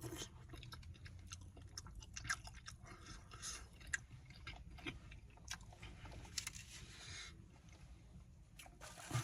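Close-up chewing and mouth sounds of a person eating: irregular wet clicks and smacks. Under them runs a steady low hum.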